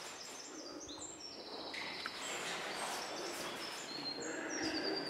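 Birds singing, many short high chirping notes, some falling in little steps, over a steady rushing noise that grows louder about two seconds in.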